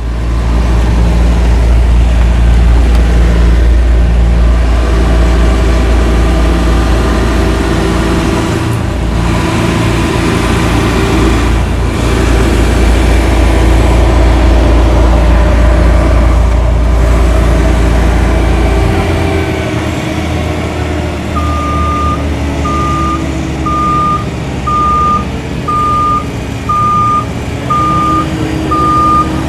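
Engine of a big working machine running steadily with a deep rumble that eases off about 19 seconds in. About 21 seconds in, a reversing alarm starts beeping about once a second, the sign that the machine is backing up.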